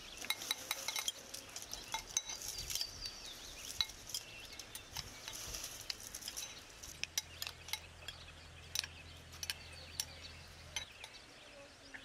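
Metal spoons clinking and scraping against glass bowls as food is stirred and mashed in them: many short, irregular clinks.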